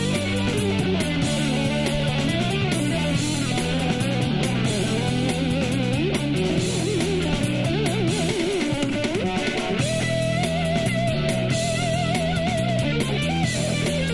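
Electric ukulele played through an amplifier: a lead melody with bent and wavering notes, then a long note held with vibrato about ten seconds in, over a steady lower accompaniment.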